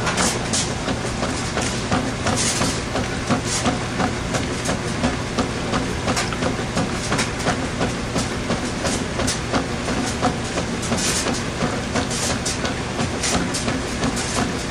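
Washing machine washing a load of towels: a steady low motor hum with frequent irregular knocks and clicks as the drum turns.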